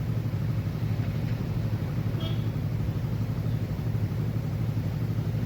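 Whirlpool top-load washing machine running, a steady low hum with a fast slight flutter, its drum turning on newly replaced bearings with no grinding or knocking.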